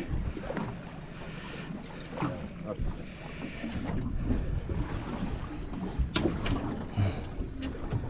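Wind buffeting the microphone over water lapping at a boat's hull, with a few sharp knocks and rattles about six and seven seconds in.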